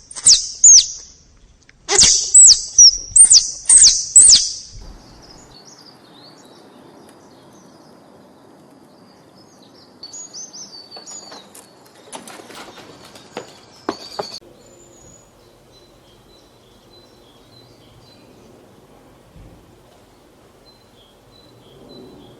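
Squirrel calling with a series of sharp, high chirps, each falling in pitch, in two quick bouts in the first few seconds. Fainter chirps and a few clicks follow around the middle.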